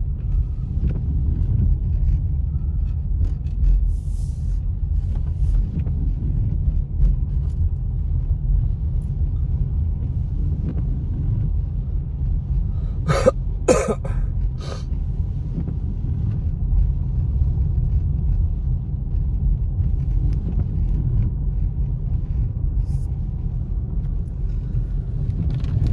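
Low, steady rumble of a car driving on a wet road, heard from inside the cabin. Three short, sharp sounds come in quick succession a little past the middle.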